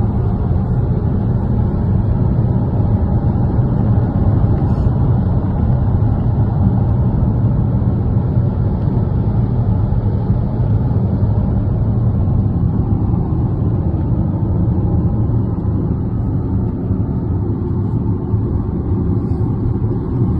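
Steady road noise inside the cabin of a car cruising at highway speed: tyre and engine rumble with wind noise, unbroken throughout.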